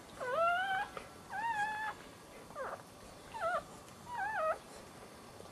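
Newborn dachshund puppies crying: five short, high-pitched cries, each bending up and down in pitch, spread over about four and a half seconds.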